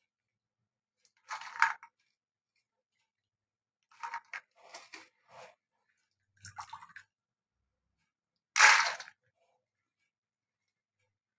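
Hands rubbing and scooping soaked kidney beans and urad in a steel pot of water, heard as several short splashes and rattles with pauses between, as wet beans are lifted out onto a steel plate; the loudest comes about nine seconds in.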